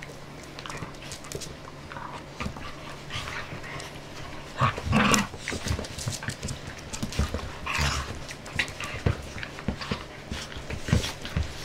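Jack Russell terrier puppies and a Staffordshire bull terrier play-fighting: scuffling and snuffling with short play growls, and two louder outbursts about five and eight seconds in.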